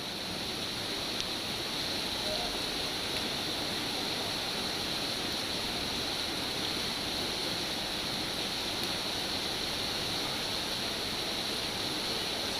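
Steady rain, an even hiss of falling drops that does not change.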